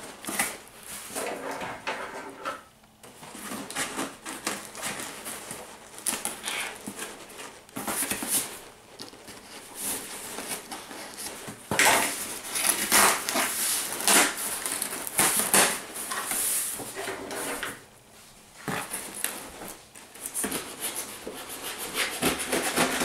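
A cardboard shipping box being opened by hand: stiff flaps pulled back and scraping against each other in a run of rustles and knocks, busiest from about halfway in.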